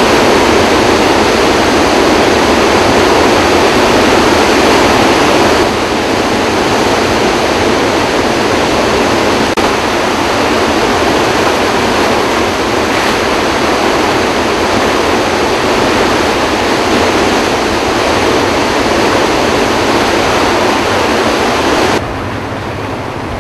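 Floodwater pouring through Kaw Dam's open spillway gates and churning below them, with all eight gates open and releasing about 44,000 cubic feet per second. It is a loud, steady rush of water that eases slightly about six seconds in. About a second before the end it drops to a softer river rush.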